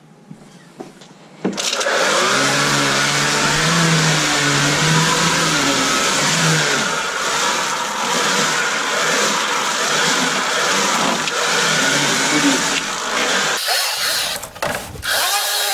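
String trimmer starting up about a second and a half in and running with its line chopping oaten straw in a tub; the pitch wavers as the line meets the straw. Near the end it eases off briefly.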